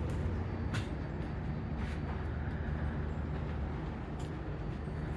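A steady low mechanical hum, like a motor or engine running, with a few faint knocks.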